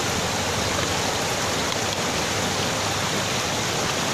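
Swollen, flooded river water rushing steadily around a bamboo fish trap: an even, unbroken rush.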